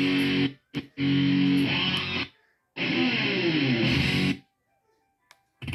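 Rock music with guitar played through a Monster Adventurer Force Bluetooth speaker, cutting off abruptly and restarting three times as the volume button is held to skip back through tracks, then stopping about a second before the end.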